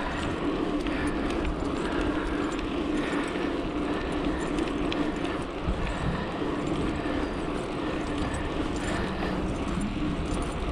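Bicycle riding along a paved towpath: steady rolling noise from the tyres on the path, with a low hum and wind rushing over the microphone.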